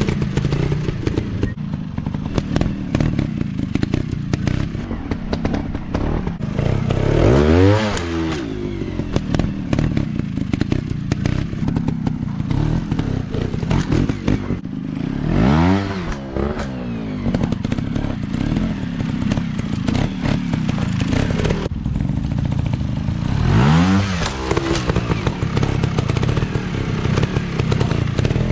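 Off-road trail motorcycle engines running steadily, revving up and back down three times, about eight seconds apart, with clattery knocks between.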